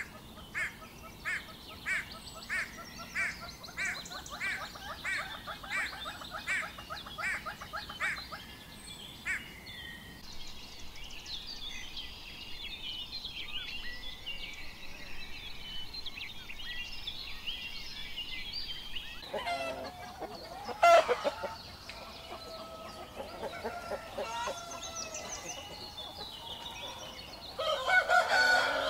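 A great hornbill calling about sixteen times in a steady run, a little under two calls a second. Then small birds chirp in a dense background, and near the end chickens cluck and a rooster crows.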